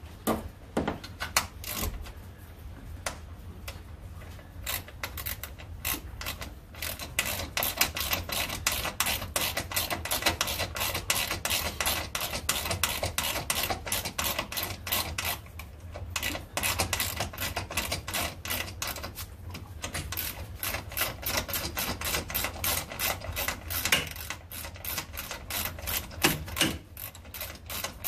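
Hand ratchet clicking in quick runs as a bolt on a vertical-door hinge bracket is turned, with a few short pauses between runs.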